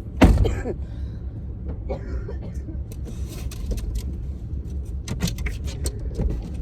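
Road noise inside a moving vehicle: a steady low rumble with scattered light clicks and rattles, and one brief louder sound just after the start.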